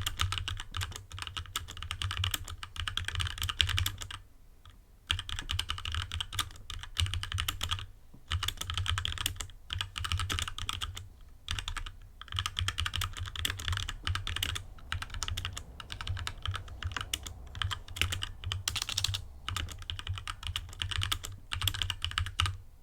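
Fast typing on a HyperX Alloy Origins Core mechanical keyboard with HyperX Red linear switches: a dense stream of keystrokes broken by a few brief pauses, stopping at the end.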